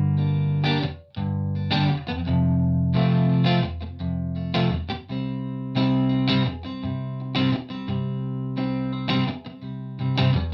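Instrumental guitar intro: chords struck and held, each damped short before the next, in a steady rhythm.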